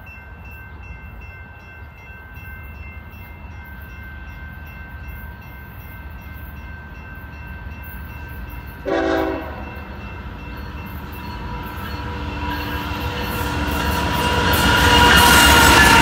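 Approaching diesel freight train led by GE ES44C4 and Dash 9-44CW locomotives, its horn sounding, with one short, louder horn blast about nine seconds in. The engine and rail noise swell over the last few seconds as the locomotives reach and pass.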